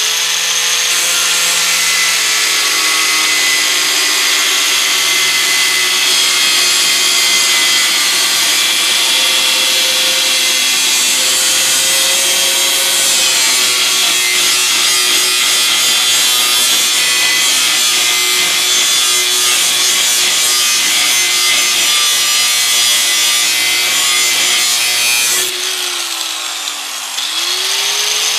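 Angle grinder with a cut-off disc running at speed and cutting through the steel blade at its mounting bolt on the underside of a 1953 push lawnmower deck, its motor whine steady under the grinding. Near the end the grinder slows down briefly, then speeds back up.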